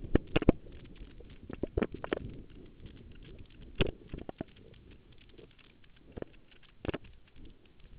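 A racehorse's hooves and tack heard from the rider's helmet: scattered, irregular knocks and clicks over a low rumble, louder near the start and again about four and seven seconds in.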